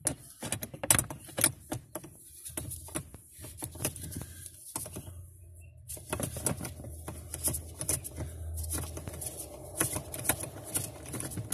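Socket wrench on an extension bar clicking in quick, irregular runs of ratchet clicks as a bolt in the lower dash panel is undone, over a low steady hum.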